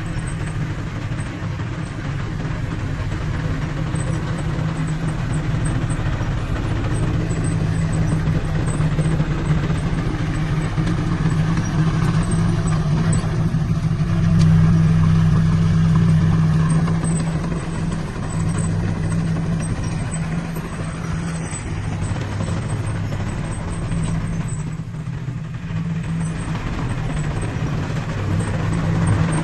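Diesel engine of heavy earthmoving equipment running steadily under work, with a deep, even hum that grows a little louder about halfway through.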